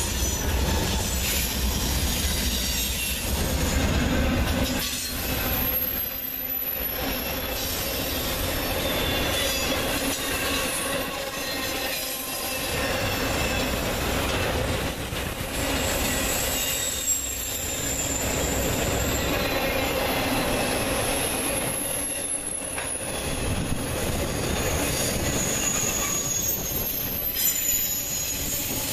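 Norfolk Southern intermodal freight train passing close by. The diesel rumble of its trailing GE C44-9W locomotives fades in the first few seconds, and trailer-laden flatcars then roll by with steady wheel-on-rail noise and high wheel squeal coming and going on the curve.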